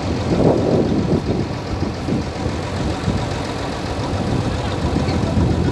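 Diesel farm engine idling steadily, its low, even running louder for a moment about half a second in and again near the end.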